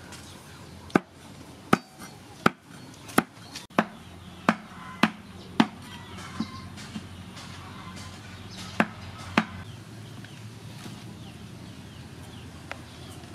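A large kitchen knife chopping boiled pork skin on a thick round wooden chopping board: a run of sharp knocks about every two-thirds of a second, thinning out to a few scattered chops in the second half.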